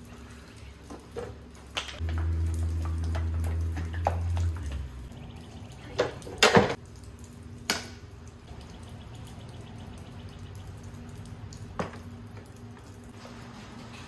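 Metal knocks and clanks as a gallon can of primer is pried open with a hammer and tool. The loudest is a cluster of sharp knocks about six and a half seconds in, with single knocks near eight and twelve seconds. Rain drips steadily in the background, and a low hum runs for about three seconds starting around two seconds in.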